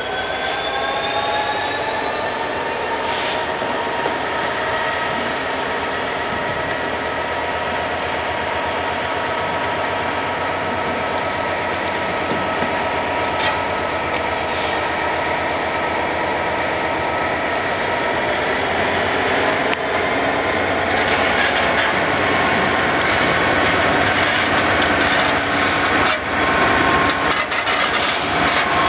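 Class 66 diesel locomotive's EMD two-stroke V12 engine running under load with a steady whine as it hauls a freight train slowly past, the engine note rising slightly at the start. A few sharp clicks along the way, and the noise of wheels on rails grows louder near the end as the locomotive draws alongside.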